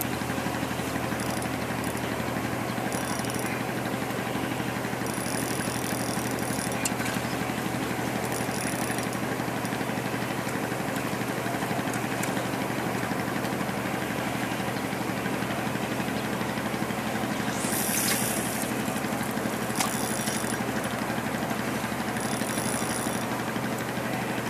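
A steady mechanical hum like an idling engine, unchanging throughout, with a short hiss about eighteen seconds in.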